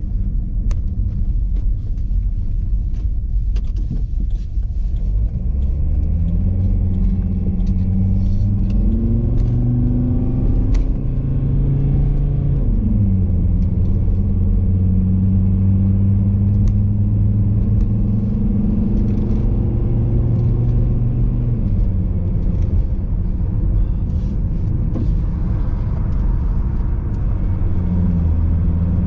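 Car engine and road rumble heard from inside the cabin as the car drives off: the engine pitch climbs from about six seconds in, drops sharply at a gear change, holds steady, then falls and climbs again near the end.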